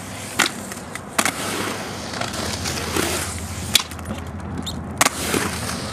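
Aggressive inline skate wheels rolling on the concrete of a skatepark bowl, a steady gritty rolling noise. Four sharp clacks of the skates striking the concrete break in: one under half a second in, one just after a second, one near four seconds and one about five seconds in.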